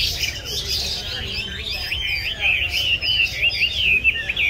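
A caged Chinese hwamei singing: a fast, unbroken run of varied whistled notes that sweep up and down in pitch.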